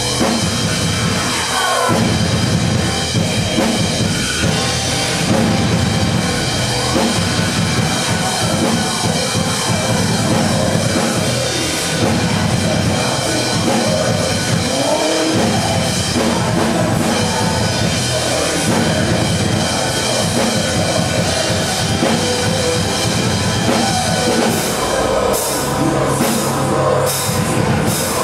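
Yamaha drum kit played live along with a recorded metal song, the drums over sustained, steady-pitched backing parts. A run of sharp, full-range hits comes near the end.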